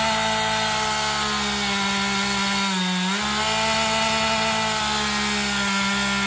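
Two-stroke gas chainsaw running at full throttle as it cuts through a tree. Its pitch holds steady, sagging briefly about three seconds in and then coming back up.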